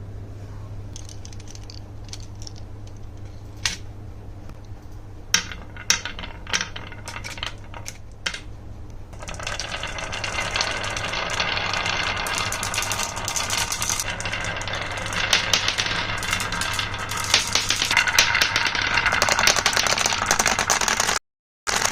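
Marbles clicking and rattling down a HABA wooden marble run. At first there are a few separate clicks, then about nine seconds in the sound becomes a dense, continuous clatter that grows louder.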